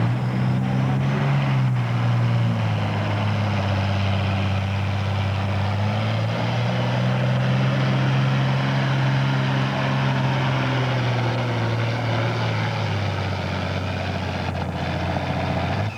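A John Deere 6030 tractor's diesel engine running hard under full load as it pulls the sled, a loud steady drone. Its pitch steps down about two seconds in, comes back up around six seconds, and sags again near the end.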